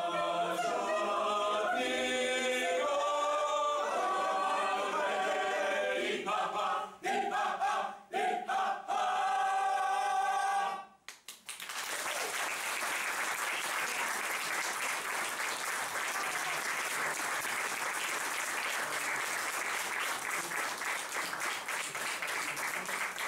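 Mixed choir of men's and women's voices singing a cappella, the song ending about eleven seconds in. The audience then applauds steadily.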